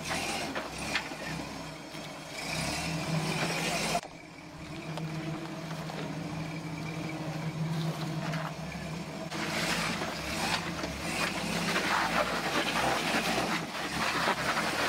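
Toyota Land Cruiser FJ40's engine running steadily at low speed as it crawls over granite rock. The sound drops sharply about four seconds in, and a rougher hiss grows over the engine through the second half.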